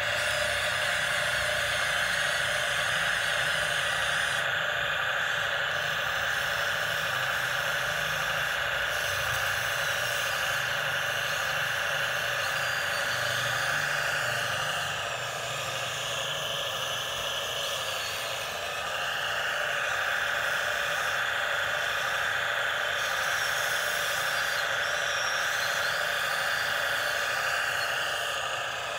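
Huina radio-controlled excavator's small electric motors and gearboxes whining steadily as the arm swings and digs, easing off briefly a little past halfway.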